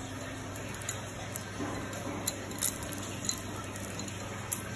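Scattered light clicks of a chain pipe wrench's steel chain links as the chain is wrapped around a pipe, over a low steady hum.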